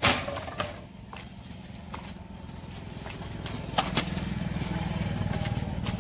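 Split firewood planks knocking and clattering as they are laid onto a stack, with a sharp wooden clack at the start and about half a dozen lighter knocks after. A low hum grows louder in the background through the second half.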